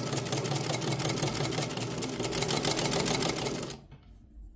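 Hamilton sewing machine running at speed, sewing a test seam in straight stitch at a lengthened stitch length, with a fast, even clatter of the needle mechanism. It stops abruptly about three and a half seconds in.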